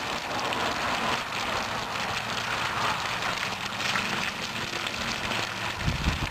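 Spring water pouring steadily from a standpipe spout and splashing onto the ground below.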